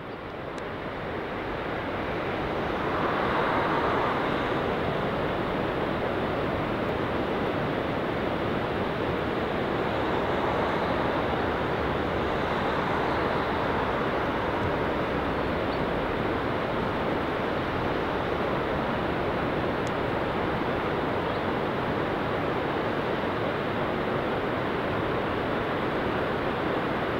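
Steady rushing noise with no distinct tone, fading in over the first few seconds and then holding level.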